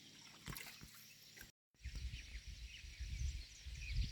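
Small birds chirping in many short high calls over low, gusty wind rumble on the microphone; this starts after a brief dropout about one and a half seconds in. Before that there is only faint outdoor ambience with a couple of light knocks.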